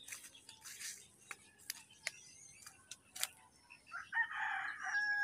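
A rooster crowing once near the end, a single drawn-out call that stops abruptly. Before it, only faint scattered clicks and rustles.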